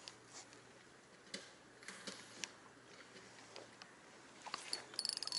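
Faint, scattered clicks and ticks from a spinning rod and reel being handled while a lure is worked slowly, turning into a quick run of clicks near the end.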